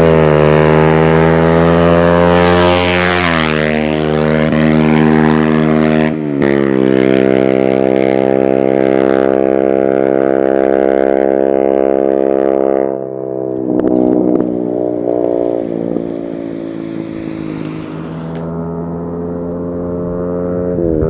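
Honda CBR Repsol motorcycle running through an M4 carbon aftermarket exhaust: a loud, steady exhaust note that holds its pitch for several seconds at a time and drops lower a few times, about three, six and thirteen seconds in.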